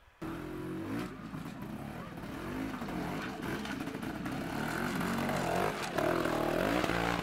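Trials motorcycle engine revving up and down in irregular throttle blips as the bike picks its way up a rocky section.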